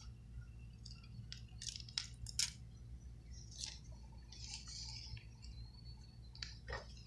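Scattered small clicks and short light scrapes of small hand tools working on the parts of an iPhone 6 Plus screen assembly, over a steady low hum.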